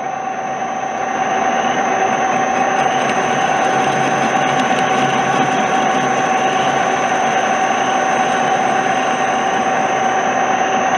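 Metal lathe running with a boring bar taking a 0.020-inch cut inside a pulley bore under power feed: a steady whine over an even hiss of cutting, growing a little louder about a second in.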